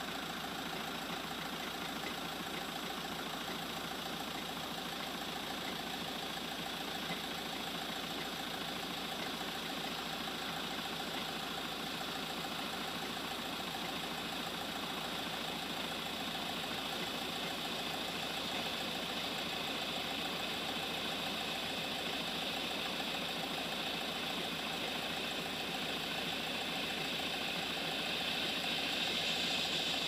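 A vehicle engine idling steadily, growing a little louder near the end.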